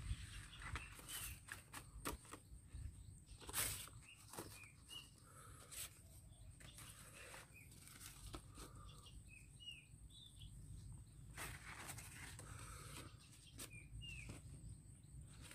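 Faint rustling and crackling as large fresh leaves are handled and laid over a bamboo-stick rack, with short bird chirps now and then.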